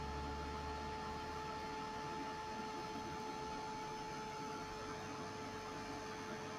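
Handheld heat embossing tool running steadily, a small fan motor's hum with a few constant tones over a hiss of air, not very loud, while it melts embossing powder.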